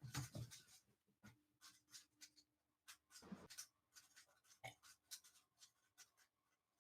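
Near silence with faint, scattered short clicks and rustles and a faint steady hum.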